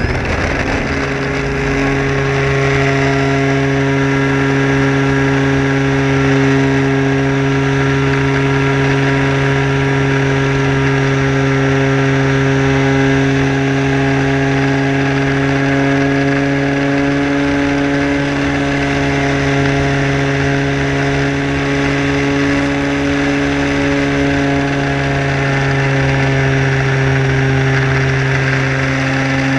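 Sport Cub RC model airplane's motor and propeller running at a steady, even pitch in flight, heard close from a camera mounted on the plane.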